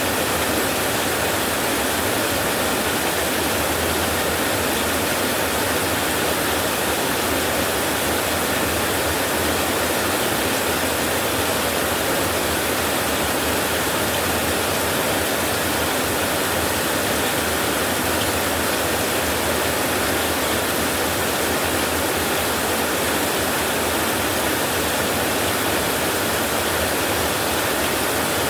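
Heavy rain on a tin roof, a steady unbroken hiss with no separate drops or thunder standing out.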